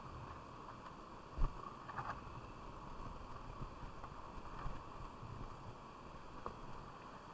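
River water running steadily, with a few light knocks and one dull thump about a second and a half in.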